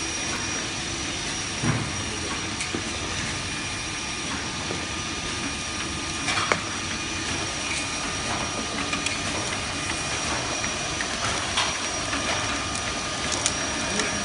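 Sleeve safety-band machine and its bottle conveyor and turntable running: a steady mechanical whir with a thin high steady tone, and a few sharp clicks and knocks as bottles move along, the loudest about six and a half seconds in.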